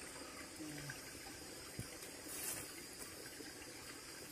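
Water of a shallow rocky stream trickling and running steadily, with a faint short murmur of a voice about half a second in.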